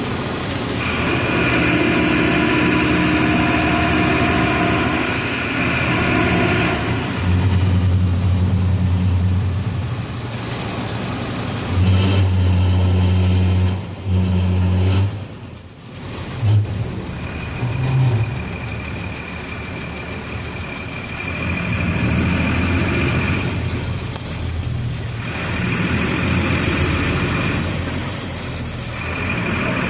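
Volksbus 17-230 EOD bus engine running on the move, its speed changing: a high whine in the first few seconds and again through the second half, a deeper drone in between, and a brief drop in loudness about halfway through.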